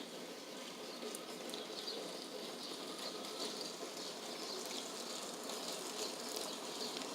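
Steady rain falling, an even hiss with scattered light drip ticks. Faint high chirps come and go over it from about a second and a half in.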